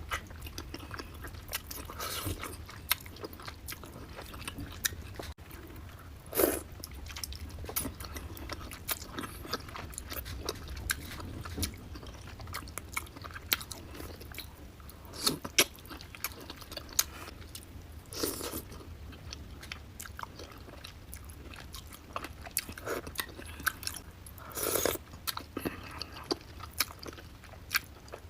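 Close-up mouth sounds of someone eating a seafood boil: biting, chewing and wet lip smacks, with many short clicks and a few louder crunches. A steady low hum runs underneath.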